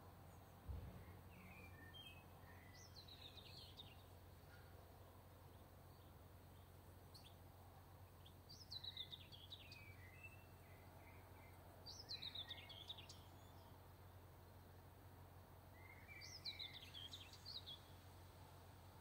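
A songbird sings four short, quick, chirping phrases spaced a few seconds apart, faint against a steady low hum. A single soft low knock comes about a second in.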